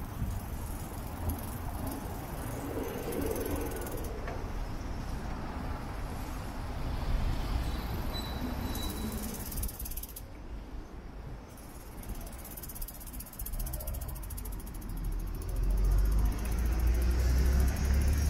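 City street noise heard from a moving bicycle, with the bike's freewheel ratchet ticking as it coasts. A low motor-vehicle rumble grows louder near the end.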